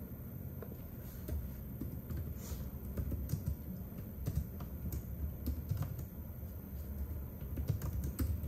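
Typing on a compact wireless keyboard with round keycaps: quick, irregular clicks of the keys being pressed, continuing through.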